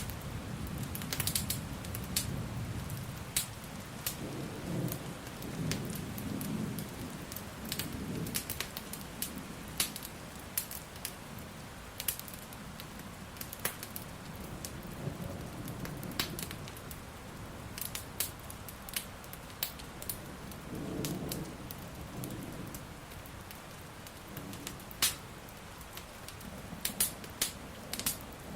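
Steady rain mixed with the sharp crackles and pops of a wood fire, and low rolls of thunder that swell a few seconds in and again past the middle.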